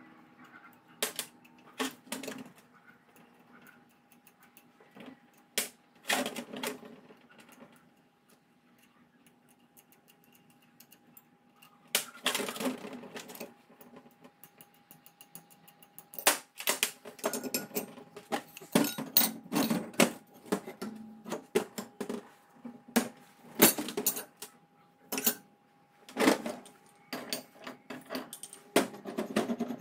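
Steel parts of a buggy chain-drive spool clinking and knocking together as they are fitted by hand: carrier plates, sprocket and brake disc set onto the bearing housing. Irregular metallic clicks and clatter in bunches, sparse for a few seconds in the middle and busier in the second half, over a faint steady hum.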